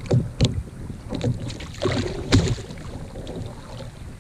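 Water slapping and lapping against the plastic hull of a sit-on-top kayak on choppy sea, with several irregular hollow knocks and light wind on the microphone.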